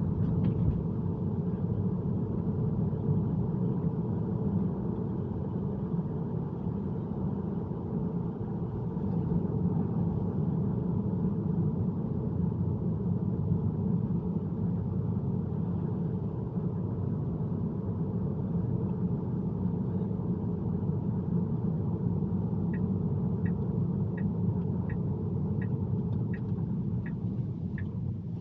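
Road and tyre noise inside an electric car's cabin while driving on wet roads, a steady low rumble. Near the end a turn signal starts ticking, about two ticks a second.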